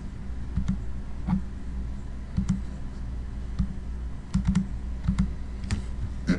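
Computer mouse and keyboard clicking: about ten sharp clicks spread unevenly, a few in quick pairs, over a steady low hum.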